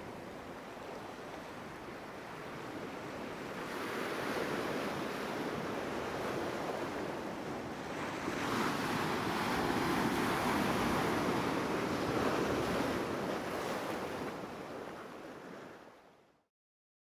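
Ocean surf washing in with wind, swelling twice, then fading out to silence near the end.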